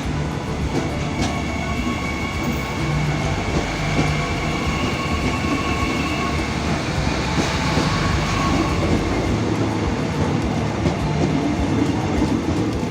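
Train rolling past, wheels clacking over rail joints, with a faint high whine for a few seconds in the middle.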